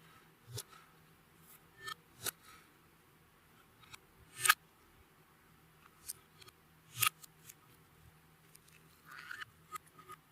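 Clear slime being worked by hand while makeup and glitter are mixed in: scattered sticky clicks and pops, the three loudest about two, four and a half and seven seconds in.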